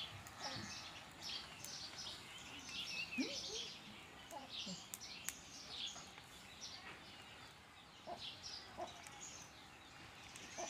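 Birds chirping in the background, many short high chirps in quick succession, with a couple of faint clicks about halfway through.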